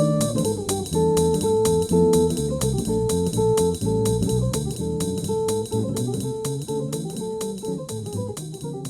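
Instrumental music with held notes over a steady beat, slowly getting quieter toward the end.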